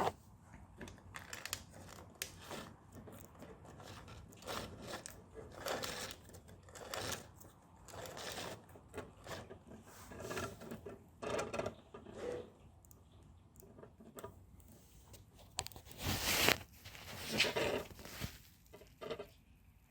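Irregular clicks and scrapes of hands handling a rubber-band-powered model car with a 3D-printed ratchet release while its rubber band is wound for another run, with a louder scrape about sixteen seconds in.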